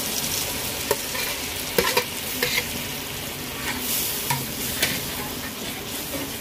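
Grated ripe mango sizzling steadily in hot ghee in a frying pan while a steel spatula stirs it, clicking and scraping against the pan several times.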